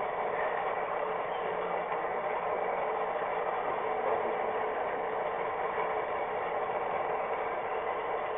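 HO-scale model train running along the track, heard from a camera riding on the train: a steady mechanical running noise of the wheels on the rails and the drive.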